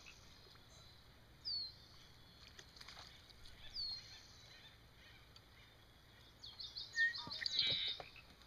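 Wild birds calling: two short high chirps that sweep downward, about two seconds apart, then a quick run of rapid high chirps near the end, the loudest part.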